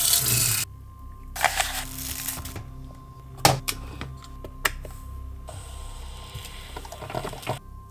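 Kitchen tap running into a glass coffee carafe and shutting off, then a short splash of water and a few sharp clicks and knocks as the carafe and drip coffee maker are handled. Near the end, a steady hiss of the coffee maker brewing for about two seconds.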